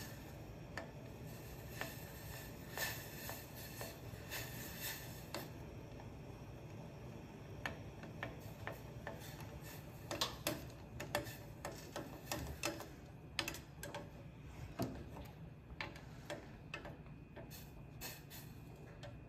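Stainless steel pot of dye heating on a gas stove burner, ticking and clicking irregularly, the clicks coming thickest around the middle, over a steady low hum.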